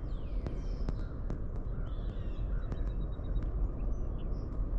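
Birds calling and chirping, short rising and falling notes and a brief rapid high trill, over a steady low rumble, with a few sharp clicks.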